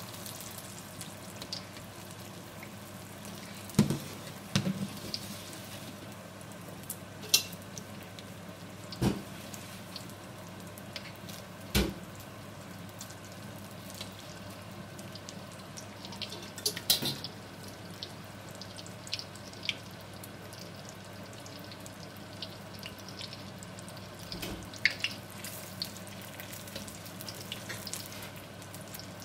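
Spring rolls deep-frying in a wok of hot oil: a steady sizzle, with a dozen or so sharp clicks and knocks scattered through it as a wire spider skimmer turns the rolls against the wok.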